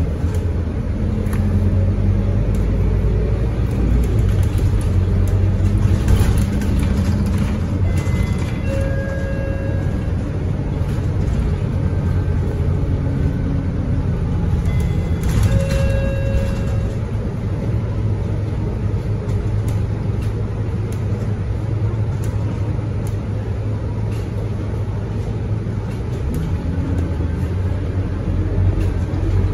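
Scania K230UB single-decker bus's five-cylinder diesel engine running as the bus drives, heard from inside the cabin as a steady low rumble with road noise. Two brief electronic chimes sound about nine and sixteen seconds in.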